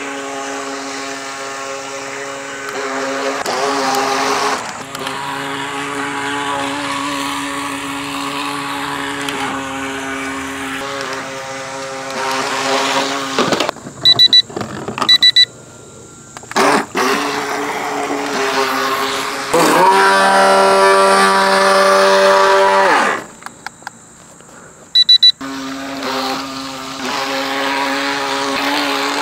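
Small electric motor of a SYMA RC firefighter boat whining steadily as it drives across the water. The whine rises and falls in pitch with the throttle and cuts out twice, and a few short high beeps sound while it is stopped.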